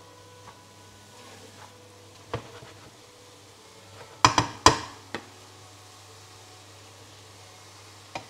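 A cooking utensil knocking against a frying pan of mushrooms a few times, loudest as two sharp clacks about four seconds in, over a steady low hum.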